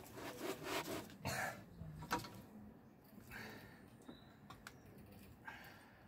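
Scattered light clicks and knocks from a tyre being shifted into place and a trolley jack being handled, with gusts of wind on the microphone and breathy bursts of heavy breathing.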